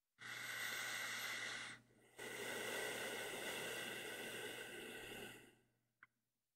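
A man's slow, deep breathing close to the microphone: one breath lasting about a second and a half, a short pause, then a longer breath that fades away over about three seconds. A faint tick comes near the end.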